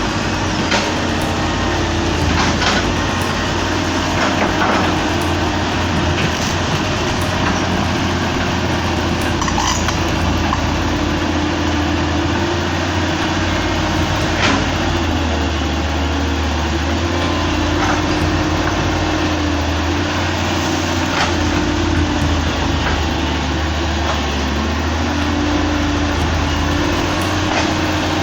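Large hydraulic excavator's diesel engine running steadily, its pitch and load wavering slightly, with a few short sharp knocks over it.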